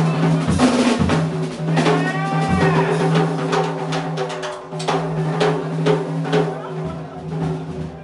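Small jazz band playing live, the drum kit busy with snare and bass drum strokes over a held low pitched note, with a brief pitch glide about two seconds in.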